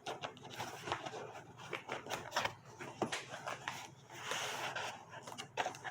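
Camcorder accessories and their packaging being handled: a run of small clicks and rustles, with a longer rustle a little past four seconds in.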